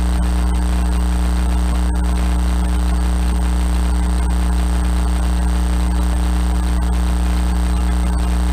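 Steady drone of a single-engine light aircraft's piston engine and propeller at climb power, heard inside the cabin.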